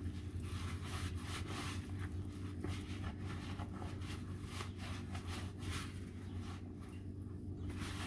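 Hands mixing and squeezing wet flour tortilla dough in a plastic basin: soft, irregular squishing and scraping, over a steady low hum.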